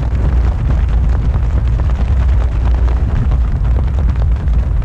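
Wind buffeting the microphone of a camera on a selfie stick during a descent under a parachute canopy: a loud, steady low rumble.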